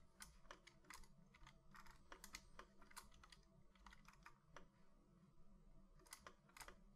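Faint, irregular clicking of computer keyboard keys and mouse buttons, over a low steady hum.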